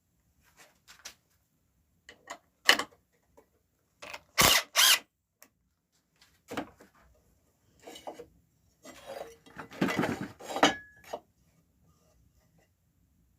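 Workshop woodworking noises as timber for the bird table top is fitted: a sharp click, two short loud bursts from a tool, then a longer clatter of wood being handled.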